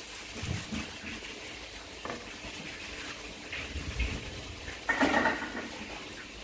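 Kitchen knife chopping leafy green stems on a wooden chopping board: scattered short knocks, with a louder noise lasting about half a second about five seconds in.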